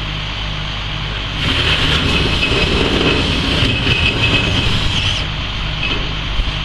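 Heavy machinery running steadily with a pulsing low hum. About a second and a half in it grows louder, with a high whine over the rumble, then eases back about a second before the end.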